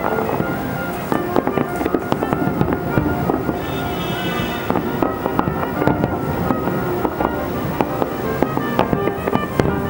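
Barrage of aerial firework shells bursting, many bangs in quick succession with no pause, over music playing underneath.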